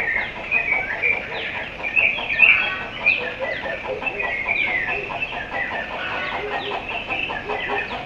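Morning chorus of several birds calling together: many quick downslurred chirps repeating over and over, with a fast run of short repeated lower notes through the middle.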